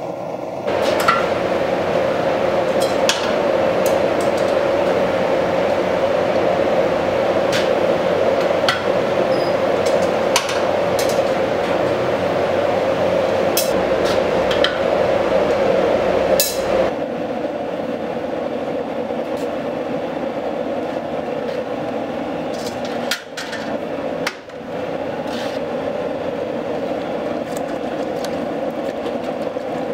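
Gas forge burner running steadily while hatchet heads are heat-treated, with a few scattered clinks of steel tongs and hot steel heads. Near the end, the red-hot heads are swirled in a bucket of quench oil to harden them.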